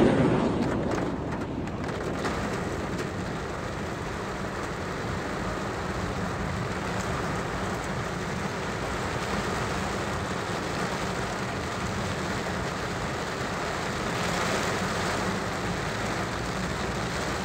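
Heavy rain pelting a moving car, heard from inside the cabin as a steady hiss and patter, mixed with the car's running and tyres on the wet road. It opens with a loud swell that dies down within about two seconds.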